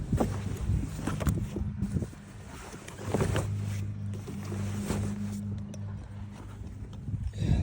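A steady low mechanical hum with scattered knocks and thuds, the loudest about three seconds in and again at the very end.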